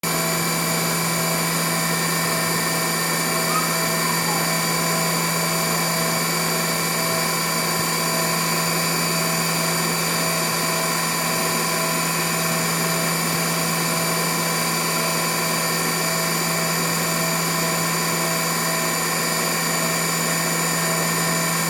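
Haas CNC mill running steadily while milling a printed circuit board: a constant machine hum with many high whining tones, and a fainter tone pulsing on and off at an even rate.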